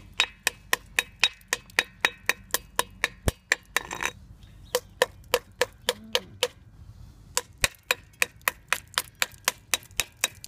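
Small hand chipping hammer tapping rapidly on painted concrete steps, about four sharp metal-on-concrete knocks a second with two short pauses, knocking up the loose paint.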